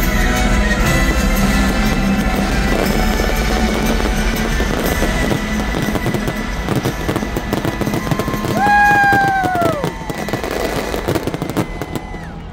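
A fireworks finale: a dense barrage of shells bursting and crackling over loud music from loudspeakers. Near ten seconds in, a held tone slides down in pitch, and the barrage thins toward the end.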